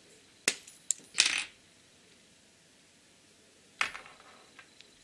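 Plastic lipstick tube and cap being handled: a sharp click about half a second in, a second click, a short scrape, then another sharp click with a brief rattle near four seconds in.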